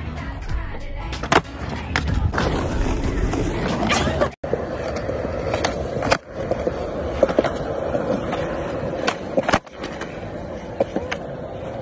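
Skateboard wheels rolling on concrete, with several sharp clacks as the board pops and lands. In the first few seconds there is a longer scraping stretch as the board grinds along a concrete ledge.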